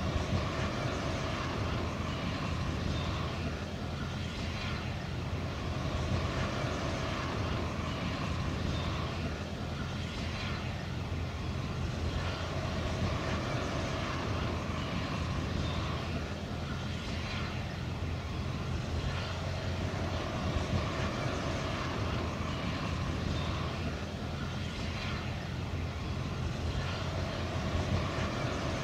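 Narrow-gauge railway train in motion: a steady running rumble of wheels on the track that keeps an even level throughout.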